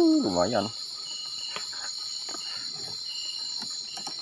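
Night insect chorus: a steady high-pitched trill, with a second insect giving short repeated calls at a lower pitch. A few faint clicks are heard over it.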